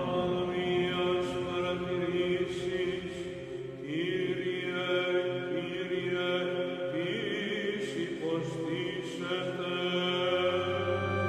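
Background music: layered held tones with slow upward glides about four and seven seconds in.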